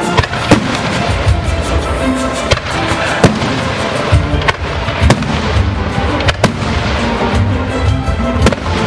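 Aerial firework shells bursting in the sky, a sharp bang every second or so, the loudest about three seconds in, over music playing throughout.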